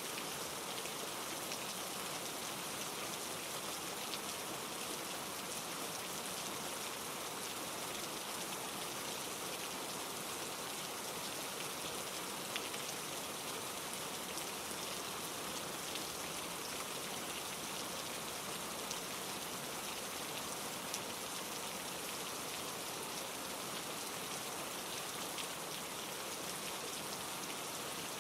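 Steady rain falling through trees, blended with a mountain stream tumbling over granite rocks, with a few sharper drop hits here and there.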